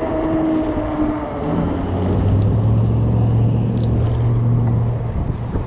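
Strong wind buffeting the microphone during a fat-tire e-bike ride. From about two seconds in, a motor vehicle's low engine hum holds steady for several seconds, then fades near the end.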